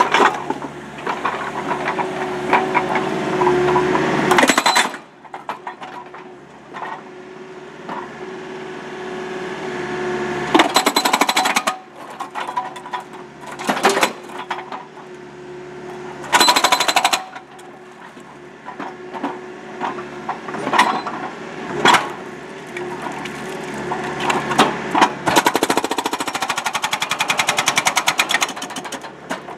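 Rockblaster hydraulic breaker hammer on a Case mini excavator pounding a concrete pool wall in bursts of rapid blows, several seconds long, with single loud knocks between the bursts. The excavator's engine runs steadily underneath.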